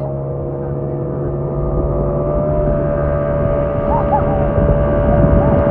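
Outboard motor of a small towing motorboat running steadily at speed, a constant droning pitch over water rushing past the towed inflatable, gradually getting louder.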